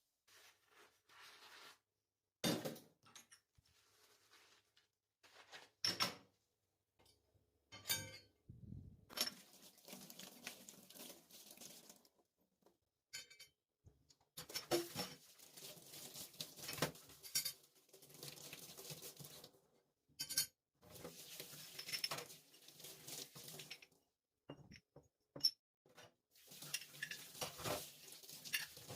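Kitchen dishes and cutlery being handled: sharp clinks and knocks, with several stretches of a few seconds of continuous scraping noise in between.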